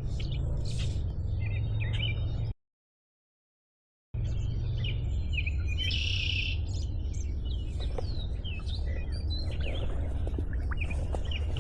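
Songbirds chirping and calling over a steady low background rumble, with one harsher buzzy call about six seconds in. The sound drops out to dead silence for about a second and a half a few seconds in.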